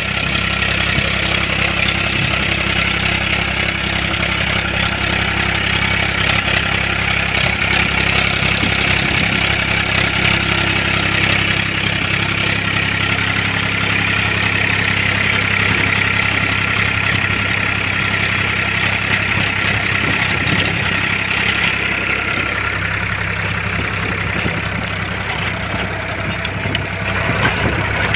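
Powertrac 439 Plus diesel tractor engine running steadily under load while it drives a rotavator tilling crop residue into the soil. The upper part of the sound eases a little about two-thirds of the way through.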